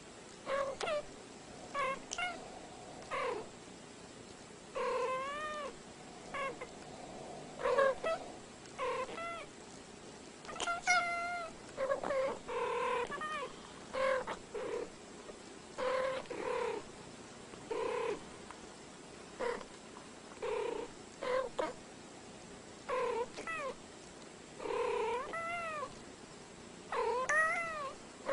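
Domestic cats meowing back and forth in a long run of short chirping calls, each under a second, many rising then falling in pitch, with short pauses between them.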